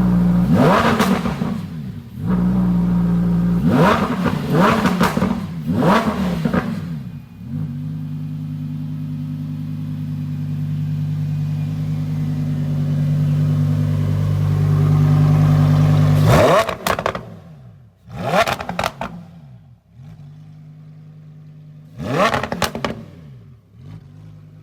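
2020 Lamborghini Huracan Evo's naturally aspirated V10, fitted with a Rift titanium exhaust, being revved: a run of quick throttle blips, then a steady held note for about nine seconds, then a few more sharp blips that drop back to idle.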